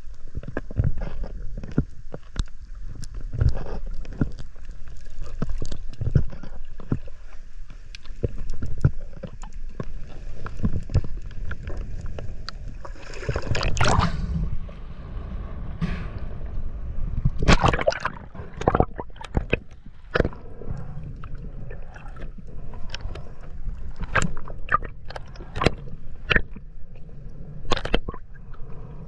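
Water heard through a snorkeler's camera, mostly underwater: a muffled rush and gurgle with scattered sharp clicks. Around the middle come louder bursts of splashing and bubbling, as a snorkeler duck-dives from the surface.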